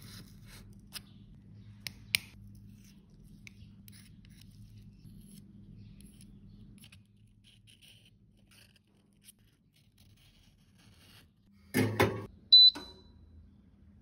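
Metal spatula scraping crumbled rouge powder out of the metal pans of a compact: soft scrapes with a few small clicks. Near the end, a knock and then a short, ringing metallic clink.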